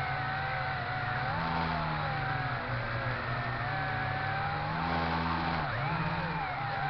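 Motor and propeller of a WL262 FPV model plane, picked up by its onboard camera in flight: a steady whine that rises and falls in pitch with the throttle, dipping and coming back up about five seconds in, over a haze of rushing air.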